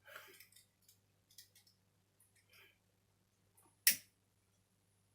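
Small handling clicks and rustles over a low steady hum, with one sharp click a little under four seconds in.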